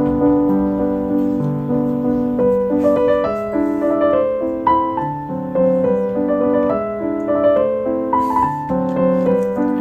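Background piano music, a slow melody of sustained notes.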